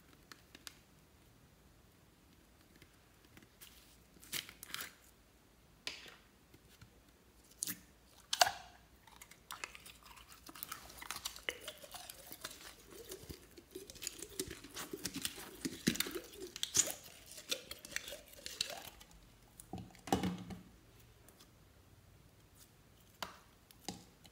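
Glittery slime being squeezed by hand out of a soft plastic tub: scattered sticky clicks and crackles, thickening into a long run of wet crackling and popping in the middle, then thinning out to a few crackles.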